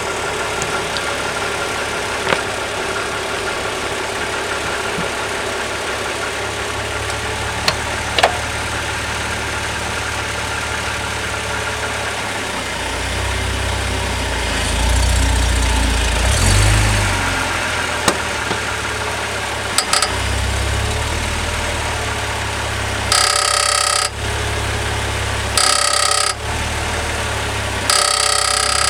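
BMW E46 330i's 3.0-litre straight-six idling in reverse, its note deepening about halfway through as the clutch is slowly let out under load. Near the end a metallic rattle from under the car buzzes three times, each about a second or less, a noise that comes only under load just before the clutch fully engages.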